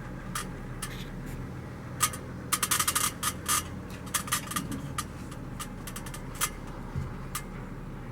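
Wooden window beading being handled and pressed into place around a glass pane: scattered sharp clicks and light knocks, with a quick run of them from about two and a half to three and a half seconds in, over a steady low hum.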